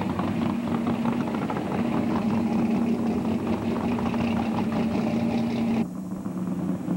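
Chevy II Nova muscle car's engine rolling by at low speed, its exhaust beating out rapid, uneven pulses over a steady hum. Near the end the sound cuts off abruptly to a quieter engine idle.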